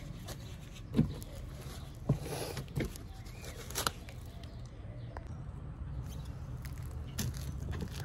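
Handling noise from a phone camera being picked up and carried: a few sharp knocks and clicks in the first four seconds, then softer rubbing and clicks, over a steady low outdoor background.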